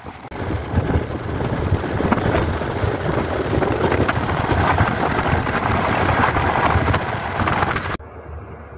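Wind rushing and buffeting over the microphone on a moving Hero XPulse 200 motorcycle, with engine noise underneath. It cuts off abruptly about eight seconds in to a quieter sound.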